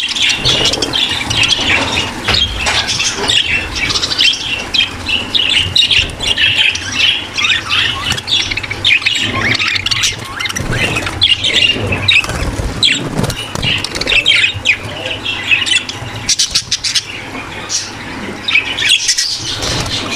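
A flock of budgerigars chattering, warbling and chirping all at once: the dense, continuous chatter of a budgie breeding aviary.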